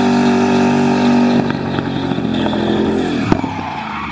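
Car engine held at high, steady revs during a long burnout while the drive tyres spin. The revs drop about a second and a half in and fall away near the end, with a single sharp crack just before.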